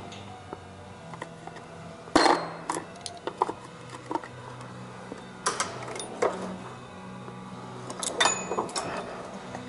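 Scattered metallic clinks and clicks of a 10 mm socket wrench and small mounting nuts being worked loose on a car door's mirror mount, in irregular clusters. A faint radio plays music underneath.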